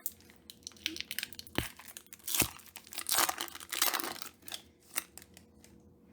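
Foil wrapper of a Pokémon booster pack crinkling and tearing as it is opened, in irregular crackly bursts that are busiest in the middle and thin out near the end.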